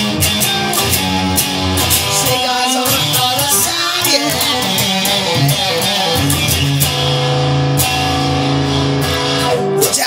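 Instrumental break of a song: guitar-led music with sustained, wavering guitar notes over a steady bass line and a regular beat.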